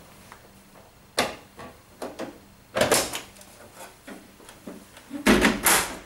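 Plastic clicks and knocks of an AEG heat pump tumble dryer's door being shut and its lower front panel being released with its push button and swung open, loudest a little past five seconds in.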